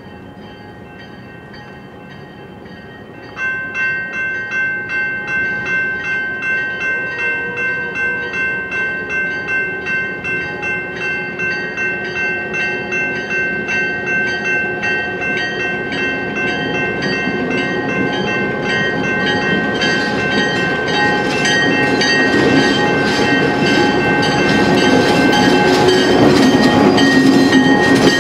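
Railroad grade-crossing bell starting about three seconds in and ringing steadily about twice a second. Under it the Santa Fe Southern diesel locomotive and its train approach, their rumble growing louder until they pass the crossing near the end.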